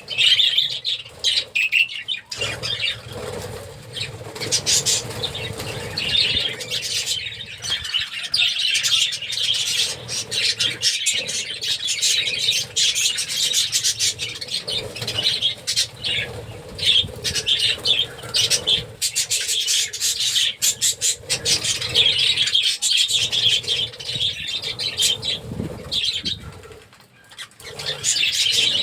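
A colony of budgerigars chattering and chirping continuously, many birds at once, with wings flapping.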